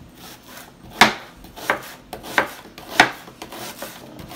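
Kitchen knife slicing through a peeled onion and knocking on a plastic cutting board, an unhurried cut roughly every two-thirds of a second.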